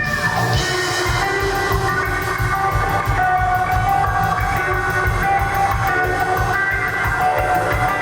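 Live rock band playing an instrumental passage, guitar carrying sustained melodic notes over a steady bass and drum beat.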